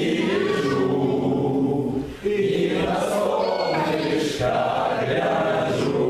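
A group of voices chanting long held tones together, breaking off briefly about two seconds in and dipping again just past four seconds.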